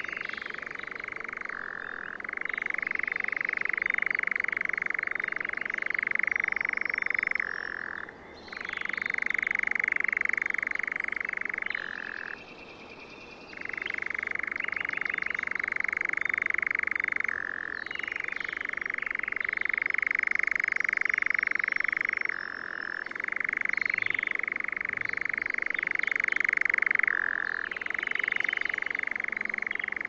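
European nightjar churring: a long, dry, continuous trill that steps between a higher and a lower pitch, broken by a few short pauses and one longer pause about halfway through.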